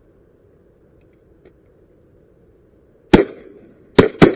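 Three shotgun shots at a flying duck: one about three seconds in, then two in quick succession about a second later, each with a short echo across the water.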